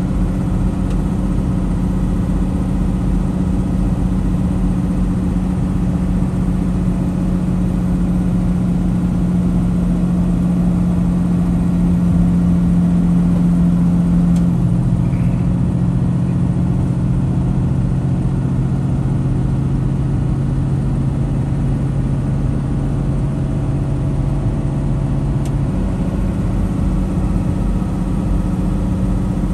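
Semi truck's diesel engine and road noise heard inside the cab at highway speed: a steady drone whose low tone drops in pitch about halfway through and comes back up near the end.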